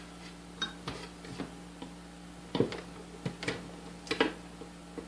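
Irregular small clicks and taps of a hand tool working inside a KitchenAid 3B mixer's motor housing, prying the retaining clip off a brush holder.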